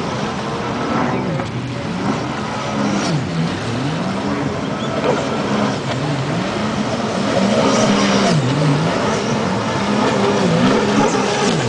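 Racing jet ski engines revving up and down over and over, their pitch rising and falling every second or so.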